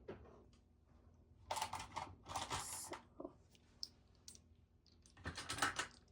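Plastic LEGO bricks clicking and clattering as they are handled, in three short bursts of rapid clicks.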